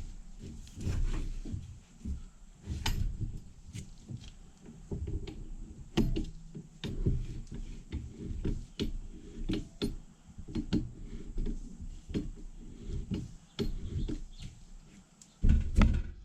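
Intermittent clicks, knocks and clunks of starter motor parts being handled and fitted together during reassembly, with the loudest clunks near the end.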